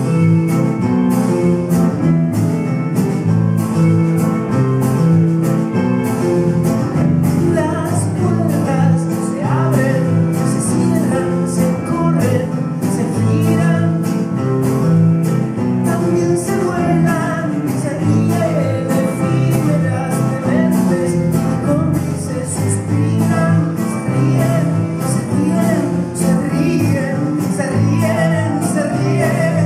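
Live band playing: a man singing over acoustic guitar and bandoneón, with drums keeping a steady ticking beat. The singing comes in clearly from about eight seconds in.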